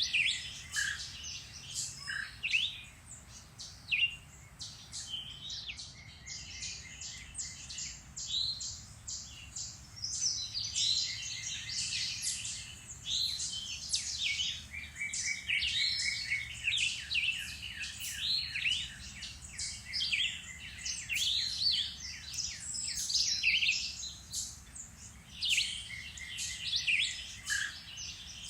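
Several songbirds singing and calling at once in woodland, a dense mix of quick chirps and short trills that goes on without a break.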